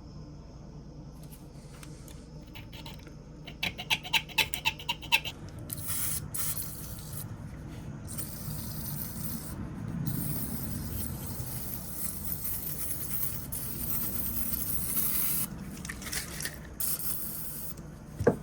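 Hand scraping and rubbing on an old pocket knife during cleaning. First a quick run of about eight short scraping strokes, then a long stretch of hissy rubbing with brief pauses, and a sharp click at the very end.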